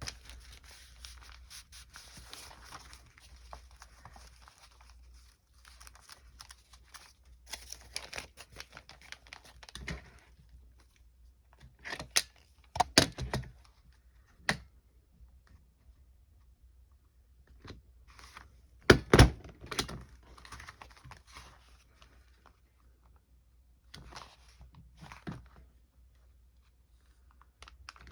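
Paper sheets rustling and being handled, with a few sharp clunks, a cluster about halfway through and the loudest pair later on, from a desk stapler being pressed to staple a small paper booklet.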